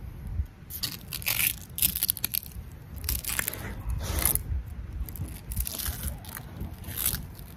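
Knife blade cutting through the tough, scaly skin of a triggerfish in a series of short strokes, about seven in all.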